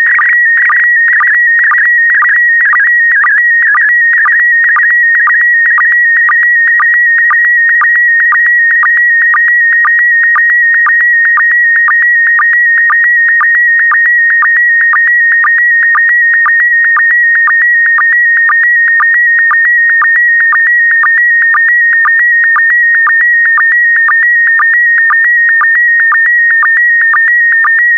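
Slow-scan TV image signal in PD120 mode: a loud electronic tone near 2 kHz that shifts in pitch to carry the picture line by line, broken by short sync pulses about twice a second. The tone wavers more in the first few seconds, then holds mostly steady.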